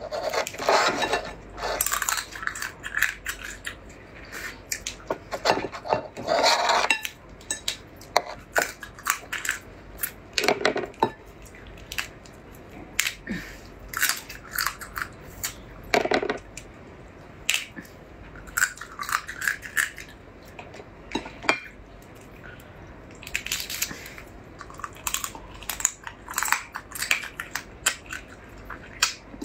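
Crab shell and legs cracking and crunching in the hands and between the teeth while she chews, in irregular clusters of short crackling clicks, with now and then a click against the ceramic plate.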